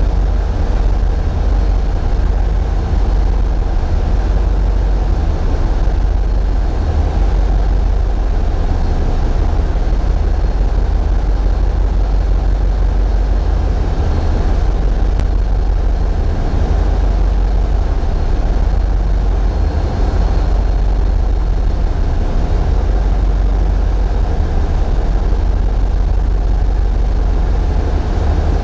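Tugboat's diesel engines running steadily, a heavy low drone, muddied by vibration of the camera mount.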